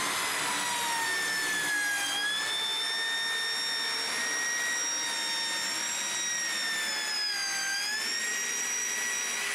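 DUALSAW CS 450 circular saw, its two blades counter-rotating, cutting through thin plywood with a steady high-pitched whine. The pitch dips briefly twice, about two seconds in and again near the end.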